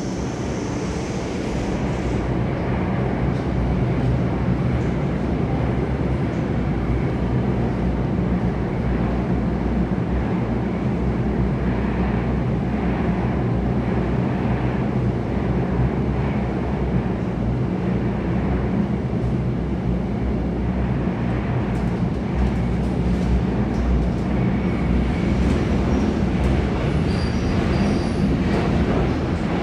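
Alstom Metropolis C830C metro train running at speed through an underground tunnel, heard inside the carriage: a steady, loud noise of wheels on rail with a low hum underneath. A few faint high tones come in near the end.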